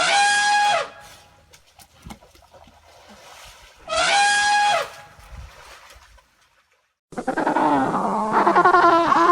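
Two separate pitched animal calls, each under a second long and falling in pitch at the end, about four seconds apart. Near the end comes a busy chorus of many overlapping animal cries.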